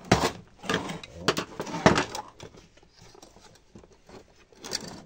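Clicks, knocks and clatter of a screwdriver and hands working the plastic stand column of an LCD monitor on a metal-topped bench, the column's plastic cover coming loose. A dense run of knocks in the first two seconds or so, then quieter, with another short clatter near the end.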